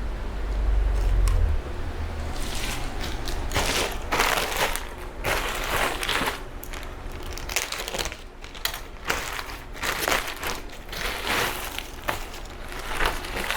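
Plastic packaging crinkling and rustling in irregular bursts as items from a parcel are handled and unwrapped, after a low handling bump at the start.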